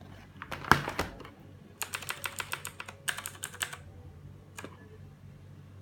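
Typing on a Redragon K300 mechanical keyboard with clicky blue switches. A few heavier key strikes come first, then two quick runs of clicks about a second each, and a last single keystroke.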